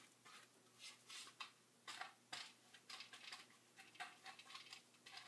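Near silence with faint, short brush strokes, about two a second: a paintbrush dabbing wet paint onto a craft pumpkin and its stem.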